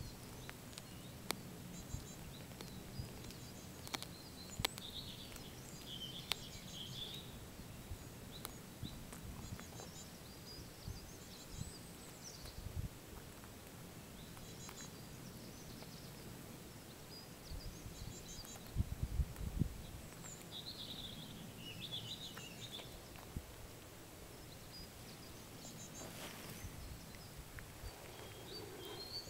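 Domestic cat chewing a field mouse, with scattered sharp crunching clicks as it bites through it. Small birds chirp now and then, and a louder low rumble comes about two-thirds of the way in.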